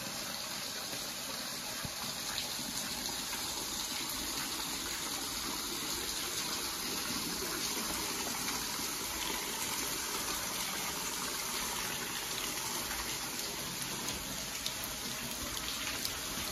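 Steady rush of flowing water, growing slightly louder over the first few seconds.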